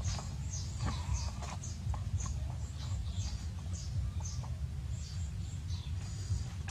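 Small birds chirping, short high chirps repeating a few times a second over a steady low rumble.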